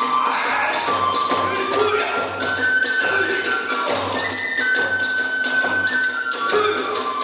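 Kagura hayashi music: a bamboo transverse flute plays long held notes that step up and down in pitch over steady big-drum beats and rapid, regular clashes of small hand cymbals.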